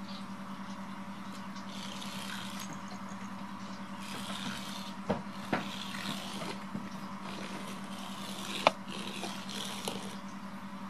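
A steady low hum with scattered light scraping and rustling over it. Two sharp clicks come about halfway through, and a louder single click about three quarters of the way through.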